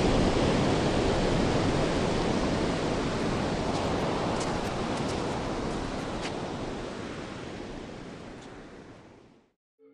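Sea water washing: a steady rushing noise that slowly fades out and stops just before the end, with a few faint ticks in the middle.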